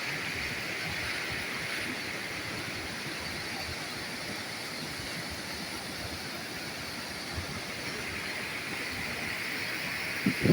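Floodwater rushing over a reservoir's overflowing spillway: a steady rushing noise.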